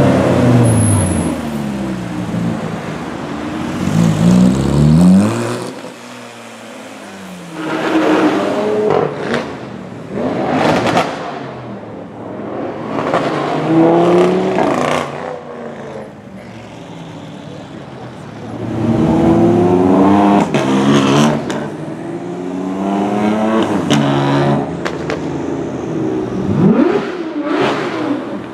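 Sports cars driving past one after another, about six passes, each engine revving up and falling away as the car goes by. Quieter lulls come between passes, around six and sixteen seconds in.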